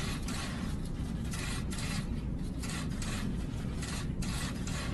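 Steady rustling, rubbing noise with no speech.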